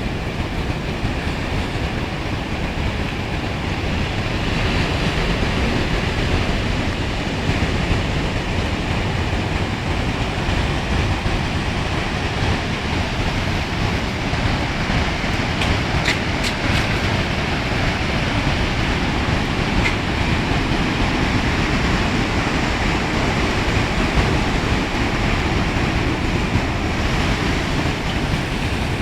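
Storm surf on the sea with wind, a steady loud rushing noise.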